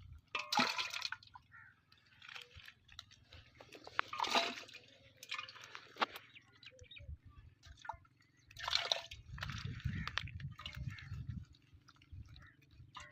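Water sloshing and splashing in irregular bursts, three louder splashes with small drips and crackles between.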